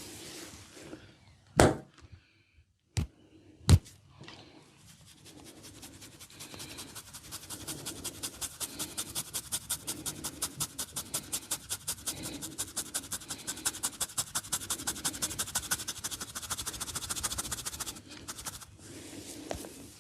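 Head massage by hand: three sharp cracks in the first few seconds, then a fast, even run of massage strokes on the head, about five a second, growing louder and stopping abruptly near the end.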